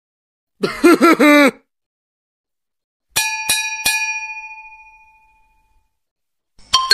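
A short voice-like sound with a wavering, bending pitch, about a second long. Then a bell struck three times in quick succession, its ring fading away over about two seconds. Another sound starts just before the end.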